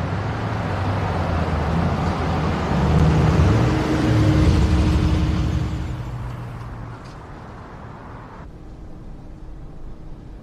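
A car driving past, its engine and tyre noise swelling to a peak a few seconds in and then fading away, cut off abruptly near the end.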